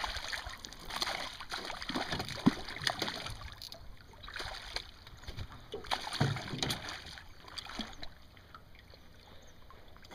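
Hooked northern pike thrashing and splashing at the water's surface beside a small boat, in irregular bursts that die away over the last couple of seconds as the fish is lifted clear.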